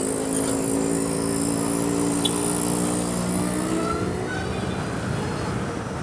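Street traffic heard from a motorcycle moving slowly through city traffic: a steady engine drone from nearby vehicles that fades after about four seconds, over a high hiss.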